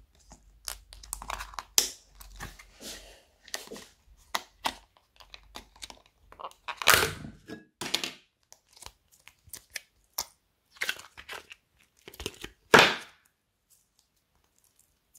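A plastic tub of slime being opened and handled: the lid peeled off and the thin plastic crinkling and crackling in short, sharp bursts, two of them louder, about seven and thirteen seconds in.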